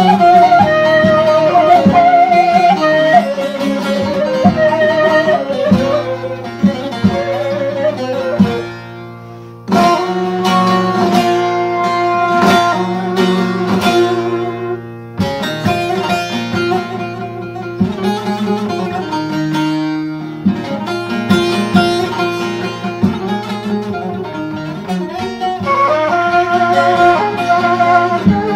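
Instrumental background music: plucked string instruments playing a melody over a held low note. It drops away briefly about nine seconds in and starts again, with another break a few seconds later.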